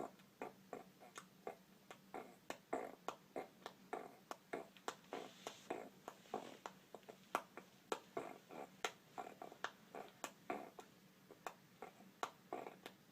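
A five-month-old baby making a steady string of short clicking and smacking mouth sounds, about two or three a second.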